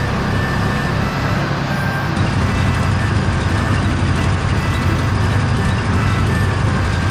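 A heavy vehicle's engine running steadily, a low rumble that shifts in character about two seconds in.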